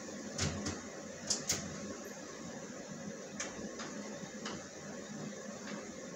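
Clicks and knocks of a small wooden wall cabinet's glass-paned door being opened and the things inside being handled, four sharp clicks in the first two seconds and a few more later. An electric fan hums steadily underneath.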